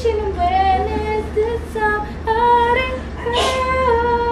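A young woman singing alone, moving through short notes and then holding long ones, over a steady low hum.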